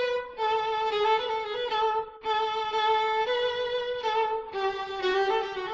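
Solo violin playing a slow melody in long held notes with vibrato, in three phrases that step down in pitch.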